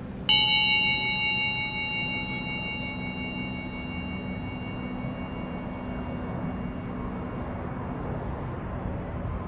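A single bell-like chime, struck once about a second in, rings with several clear tones and slowly fades over several seconds, above a steady low hum.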